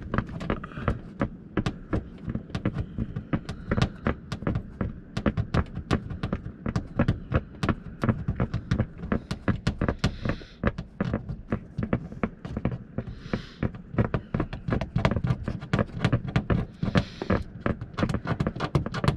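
Tint-removal steamer running against a car's rear window, sputtering with rapid, irregular pops and crackles and a few short bursts of steam hiss.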